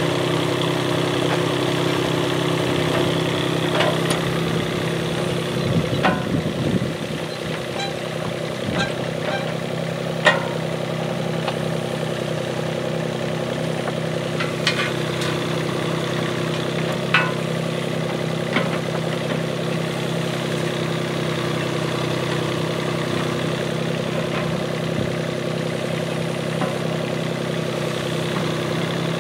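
Yuchai YC15-7 mini excavator's diesel engine running at a steady speed while it digs, with scattered sharp knocks and clanks from the working bucket and arm, the loudest about ten and seventeen seconds in.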